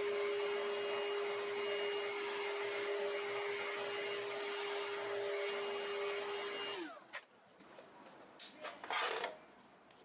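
Hericaine H11 cordless vacuum running with its electric mop head, the two round pads spinning, a steady motor whine. About seven seconds in it winds down, the pitch sliding lower as it stops. A few faint knocks follow near the end.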